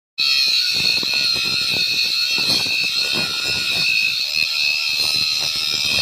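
Homemade angle grinder, a 775 DC motor spinning a cutting disc, cutting into a rusty metal bar: a loud, steady high-pitched whine of disc on metal with rough grinding chatter underneath, cutting off suddenly at the end.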